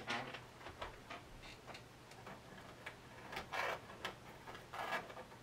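Small clicks, taps and rustling from hands tucking cables and handling parts inside a small 3D-printed PC case. There is a sharp click at the start and a couple of louder rustles in the second half.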